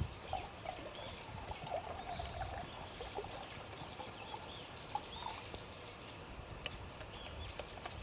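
Small birds chirping and calling repeatedly in woodland, with a few faint clicks.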